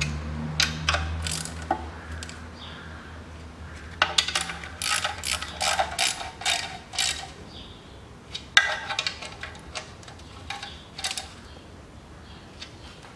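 Socket ratchet clicking as the bolts of an automatic-transmission oil filter (strainer) are tightened, in two runs of quick clicks: one about four seconds in, the other about eight and a half seconds in. A low steady hum fades out over the first few seconds.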